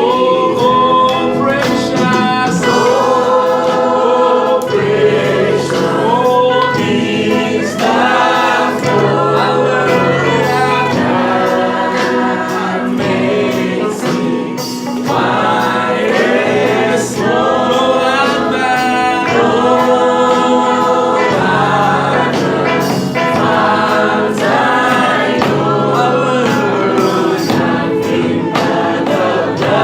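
Church choir singing a gospel song, several voices together in harmony.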